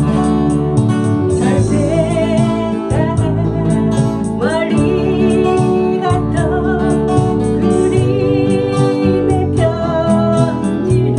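A woman singing a Korean folk ballad, with vibrato on held notes, while strumming a steel-string acoustic guitar.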